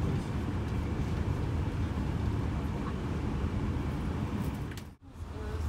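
Steady low rumble of a moving passenger train heard from inside the coach: wheels running on the track. Near the end it fades out to silence for a moment, then comes back.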